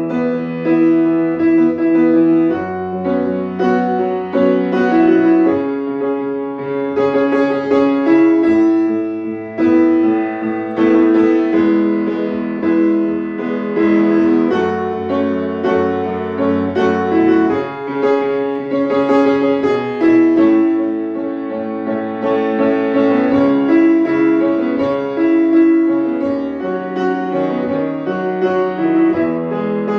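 Piano music: a slow accompaniment of held chords and melody notes that change every second or two.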